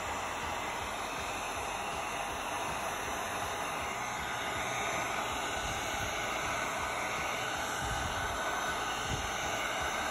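Heat gun running steadily, its fan blowing a rush of hot air over freshly poured epoxy resin to pop the surface bubbles.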